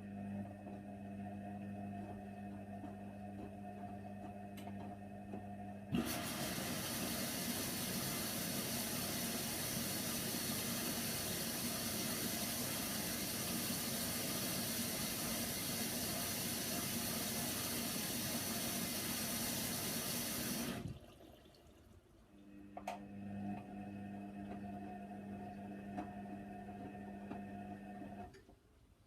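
Hoover Nextra HNWL 7146 washer dryer starting its cycle: a steady electric hum, then about a second in from six seconds, water rushing in to fill the drum for about fifteen seconds before the inlet cuts off suddenly, followed by the hum again for several seconds.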